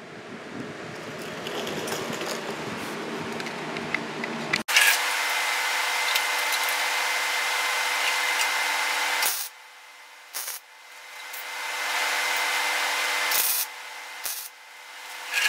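A power tool, most likely an angle grinder, runs in spells of a few seconds, ramping up and then holding steady, on sheet-metal patch work. Short sharp bursts break in between, the last of them a MIG tack weld on the clamped patch.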